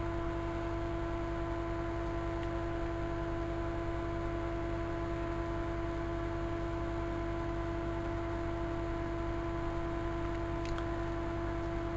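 Steady, unchanging hum made of a few fixed tones, the strongest a mid-pitched one, over faint hiss.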